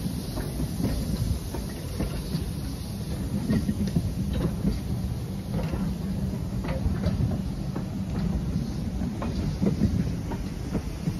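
Railway passenger coaches rolling past close by: a steady low rumble of wheels on rails, with irregular clicks as the wheels pass over the rail joints.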